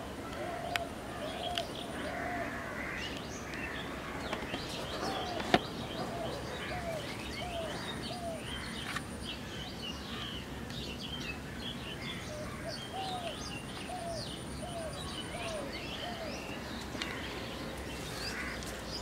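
Several birds chirping and twittering, with one bird giving runs of four to six short arched notes at about two a second, repeated several times. A single sharp click a few seconds in stands out above them.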